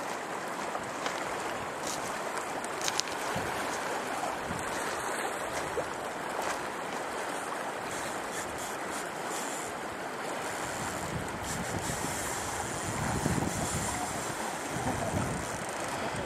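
Swift river current rushing steadily past a gravel bar, with wind buffeting the microphone in gusts during the second half.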